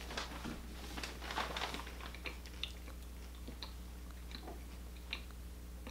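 Chewing a mouthful of fried chicken sandwich, with small crunchy clicks that come thick in the first couple of seconds and then thin out.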